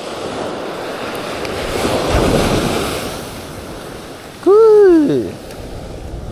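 Surf washing on the beach, swelling about two seconds in, with wind on the microphone. About four and a half seconds in, a loud short call rises and falls in pitch over the surf.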